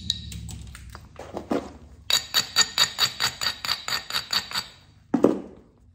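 A hand-held abrading stone rubbed back and forth along the edge of a heat-treated chert biface, a quick even run of about five clinking strokes a second after a few scattered scrapes. A single louder knock near the end.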